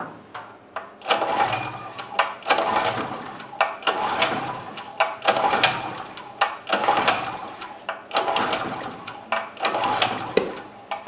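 Generac GP3250 portable generator's single-cylinder engine being pull-started by its recoil cord, about seven hard pulls a little over a second apart, each a sharp yank followed by a fading whir of the engine cranking over. The engine tries to catch but does not keep running.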